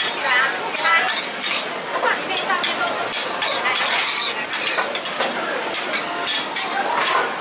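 Metal spatula scraping and clattering repeatedly across a large flat griddle, pushing fried rice together and scooping it onto a plate, with the food sizzling on the hot surface.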